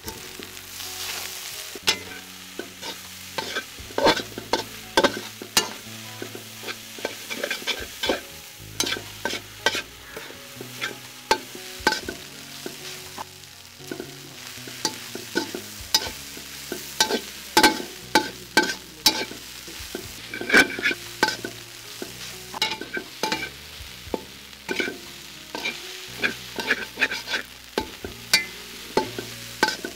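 A perforated metal spatula scraping and clinking against a large steel pan as crumbled fried fish is stir-fried, with a light sizzle underneath. The clinks come irregularly, a few each second.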